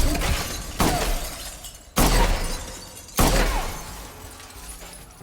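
Heavy gunshots from an action film's soundtrack: three big shots about a second and a quarter apart, each crashing and dying away slowly. Faint music comes in near the end.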